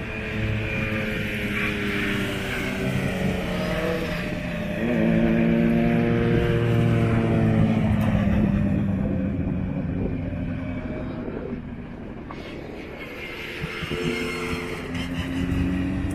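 MG Metro 6R4 rally car's V6 engine revving hard and easing off as the car is driven around cones on tarmac, the pitch climbing and falling repeatedly. It is loudest around the middle, drops away briefly about three quarters of the way through, then picks up again.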